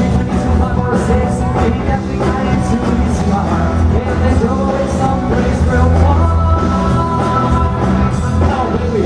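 Live band playing amplified music, with bass, drums and a sung vocal line.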